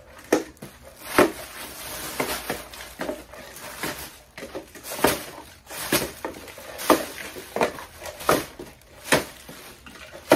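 Packaged goods being handled and set into a cardboard box: irregular knocks, taps and rustles, one every half second or so.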